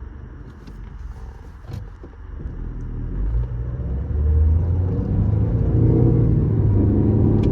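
2019 Toyota Corolla 2.0 driving forward, a low grinding rumble that builds over the first few seconds and then holds steady. It is the car's fault noise, which rises when driving forward and stops in reverse.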